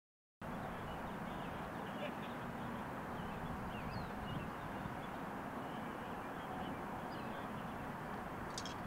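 Outdoor ambience that cuts in abruptly: many small birds chirping briefly and irregularly over a steady background hiss and rumble. A short click comes near the end.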